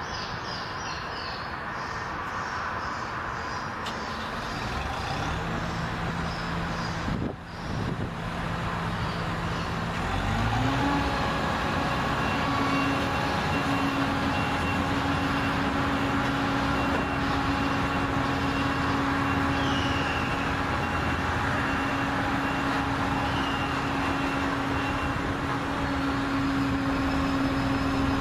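Perkins diesel engine of a Hyundai HR70C-9 single-drum compaction roller running steadily as the machine drives. About ten seconds in, the engine speeds up to a higher, louder pitch and holds it.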